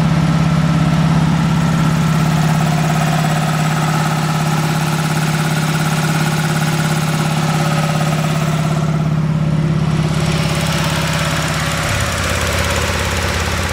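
Tank-mounted Kaeser electric air compressor, on 3-phase power, running steadily just after start-up with a strong, even hum. About twelve seconds in, the hum drops to a lower tone.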